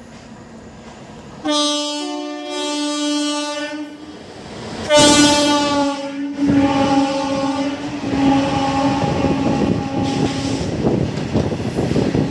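Freight train locomotive horn sounding twice: a blast about a second and a half in that lasts a couple of seconds, then a louder, longer blast about five seconds in that carries on for several seconds. Under the second blast the rumble and clatter of the passing train builds.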